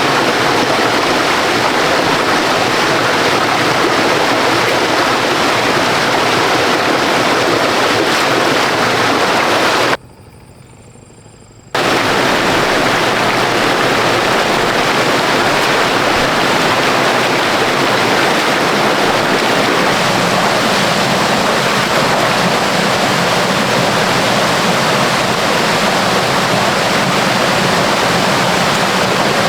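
Rushing water of a waterfall and rapids, a loud steady roar that drops out abruptly for under two seconds about ten seconds in before returning.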